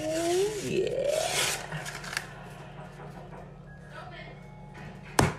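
Paper wrapper being torn and peeled off a cardboard tube of refrigerated biscuit dough. Near the end the tube bursts open at its seam with one sharp pop.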